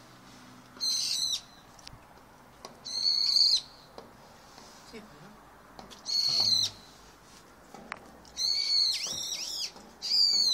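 A bird calling in five separate bursts of high, chirping notes, the longest about a second long with notes that rise and fall.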